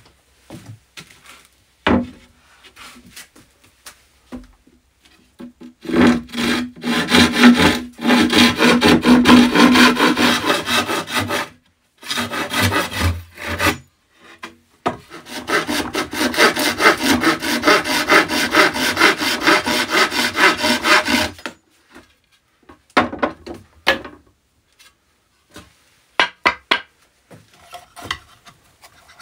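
Hand saw cutting a thin white board laid on a wooden stump: two long bouts of quick back-and-forth strokes with a short pause between them. A few separate knocks and handling sounds come before and after the cutting.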